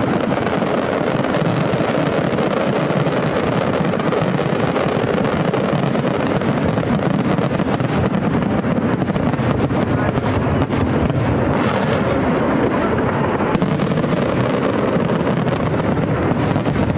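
Fireworks display at a heavy barrage: many aerial shells bursting in quick, overlapping succession, a continuous din of bangs and crackle with no pause.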